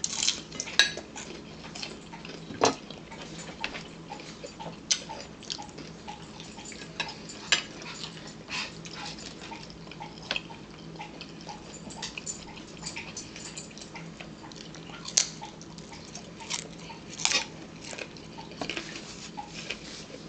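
Fork clinking and scraping on a ceramic plate, with other irregular sharp clicks and knocks of eating at a table.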